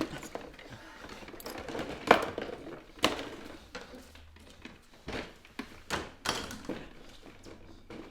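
Irregular knocks and clunks of dishes being handled, the sharpest about two seconds in and another about a second later.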